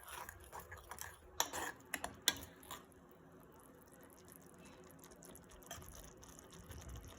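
Rasam coming to the boil in a pan: faint, steady bubbling, with a few light clicks in the first three seconds.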